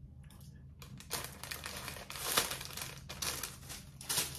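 Paper packaging crinkling and rustling in irregular bursts as it is handled, the loudest crackle about halfway through.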